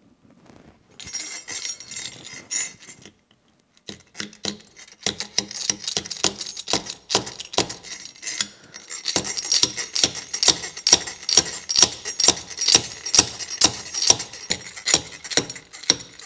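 Improvised slide hammer made from threaded rod, hammered again and again to pull a broken dowel pin: a long run of sharp, ringing metal-on-metal clinks, about two to three a second, getting quicker and louder in the second half.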